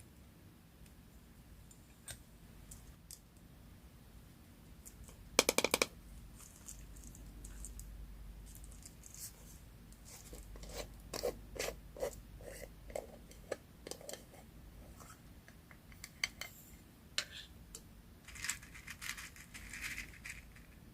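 Close-up handling sounds of paper collage work: scattered small taps and clicks, a short rapid rattle of strokes about five seconds in, and a rustling, crinkly patch near the end.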